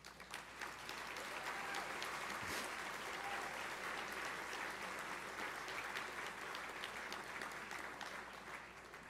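Audience applauding, building up over the first second and fading away near the end.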